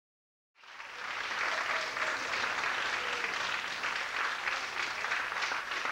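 Theatre audience applauding, fading in about half a second in and then holding steady as a dense crackle of many hands clapping.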